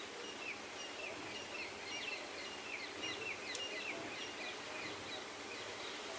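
Many small birds chirping at once: a dense run of short, high, falling chirps that overlap one another, over a steady outdoor background hiss.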